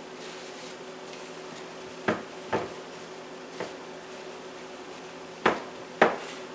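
Glass bowl knocking lightly against the countertop and hands as it is wiped around the rim with a paper towel: five short knocks, two about two seconds in, a faint one in the middle, and two near the end, the last the loudest.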